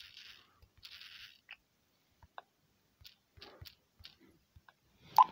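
Faint scattered clicks and taps, as of a message being typed and sent, with two brief soft hisses in the first second and one sharper click just before the end.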